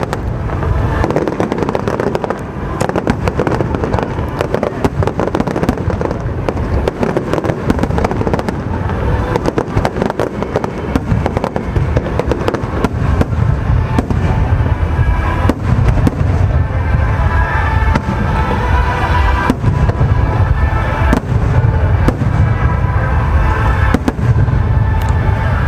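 Fireworks bursting in a rapid, continuous barrage of bangs, with music playing under them; the music's tones come through more clearly in the second half.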